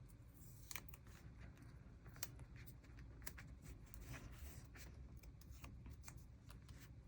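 Faint paper handling: stickers being peeled and pressed onto a journal page, with scattered small clicks and soft rustles.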